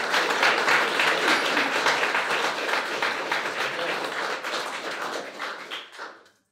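Audience applauding, a dense spread of many hands clapping that tapers off and stops near the end.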